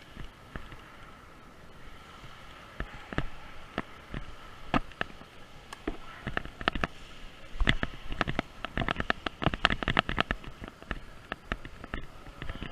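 Irregular knocks and clicks of a player's footsteps and rattling gear while moving, sparse at first and coming thick and fast from about eight seconds in.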